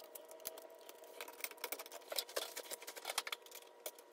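Faint, irregular light clicks and rattles of plastic being handled as a vertical-blind valance corner piece is fitted.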